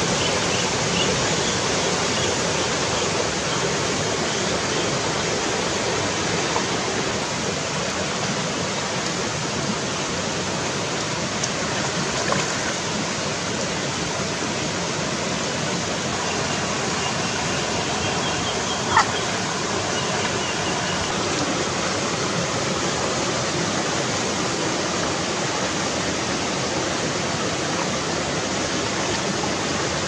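Shallow rocky stream rushing over stones, a steady, even water noise. A few faint high chirps come and go over it, and there is one sharp click about two-thirds of the way through.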